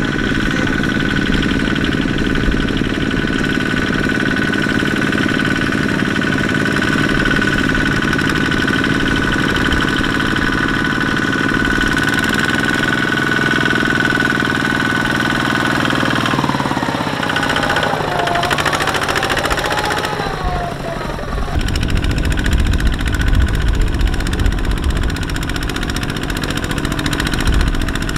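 Two-wheel walking tractor's single-cylinder diesel engine chugging steadily as it pulls a loaded trailer. About two-thirds of the way through, the pitch wavers and the running turns deeper and rougher as the tractor works through deep mud.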